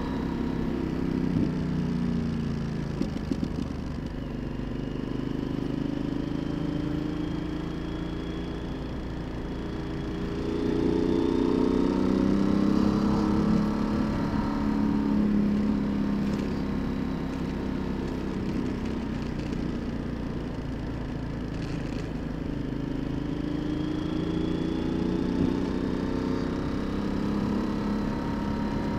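Yamaha XT1200Z Super Ténéré's parallel-twin engine running under way, with a steady rush of road noise beneath. Its pitch climbs about ten seconds in, sinks again about twenty seconds in, and climbs once more near the end as the rider opens and eases the throttle.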